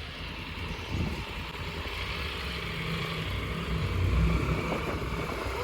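Motorcycle engine running at low speed, growing gradually louder.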